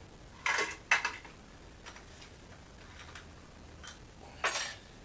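A few short metallic clinks and clatters of tools and parts being handled: one about half a second in, another about a second in, and a louder one near the end.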